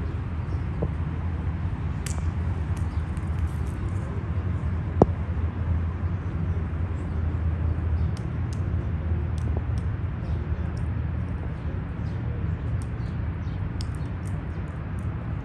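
Steady low rumble of outdoor city background noise, with many short, high chirps of small birds scattered through it, growing busier from about eight seconds in, and a single sharp click about five seconds in.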